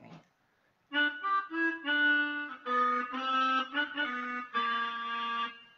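Akai EWI 5000 electronic wind instrument playing its harmonica preset: a run of short notes starting about a second in, then longer held notes, stopping just before the end.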